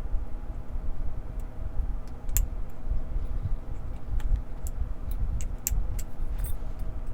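Small metallic clicks and ticks of a lock pick and tension tool working the pin stack of a Brinks padlock, scattered irregularly, over a steady low rumble.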